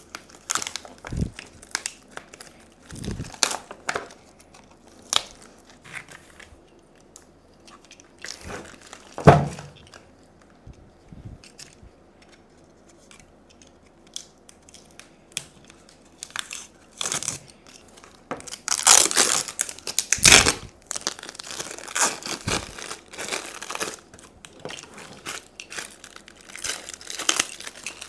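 Sticky tape and green insulating wrap being peeled and torn off a lithium battery pack, in irregular crinkling, ripping bursts that come thickest in the second half. One sharp knock about nine seconds in.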